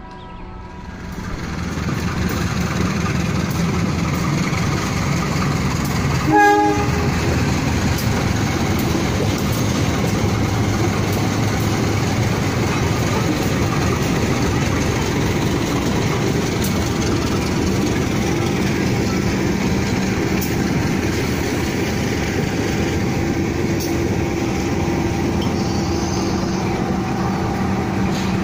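Train running on the rails: a steady, loud rumble of wheels on track, with one short horn blast about six and a half seconds in.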